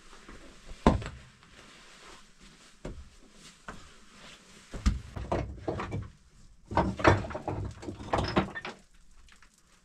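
A person clambering through a narrow rock opening: irregular knocks, thuds and scrapes of shoes and body on stone and gritty dirt, with a sharp knock about a second in and a busier run of scuffing and knocking in the second half.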